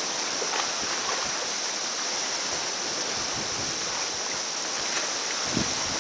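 Steady wind and water ambience at a marina's edge, an even hiss with a brighter high band. A brief low bump of wind on the microphone comes near the end.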